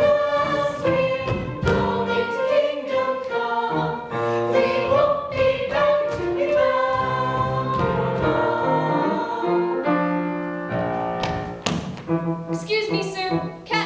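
A stage-musical number: a choir of voices singing together with instrumental accompaniment.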